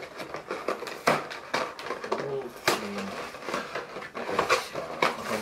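A cardboard snack carton being torn open by hand: an irregular run of crackling and ripping paperboard with sharp clicks.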